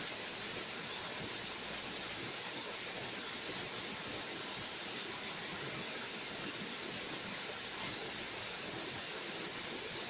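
Small waterfall streaming down a rock face: a steady, even hiss of falling water.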